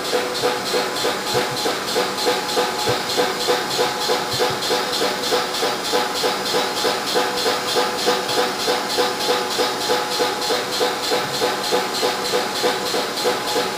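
A machine running steadily: an even hiss with a hum in it, pulsing about three times a second.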